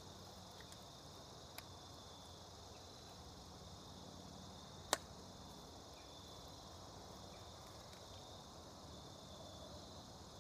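Faint, steady insect chirring, with a single sharp click about five seconds in.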